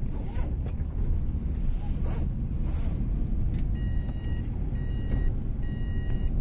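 Renault Kiger compact SUV running, a steady low rumble. From a little past halfway an electronic warning chime beeps about once a second.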